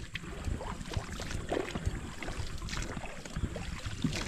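Scattered knocks, creaks and rustles as someone shifts about in a soft, partly deflated inflatable boat.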